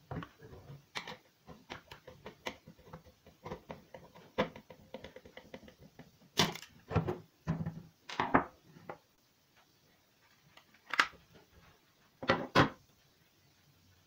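Irregular clicks, taps and knocks of a microwave oven's mechanical timer and its plastic housing being handled on a wooden bench as the timer is freed and lifted out. A run of louder knocks comes about halfway through, and a few sharp ones near the end.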